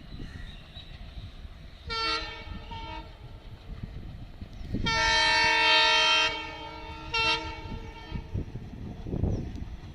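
Locomotive horn sounding a short blast, a long blast of about a second and a half, then another short blast, over the low rumble of a train.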